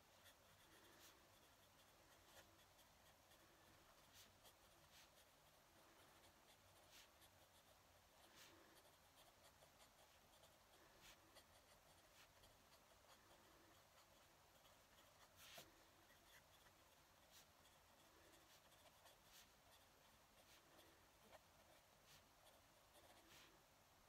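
Faint scratching of a fountain pen nib on paper as handwriting goes on, with a few light ticks.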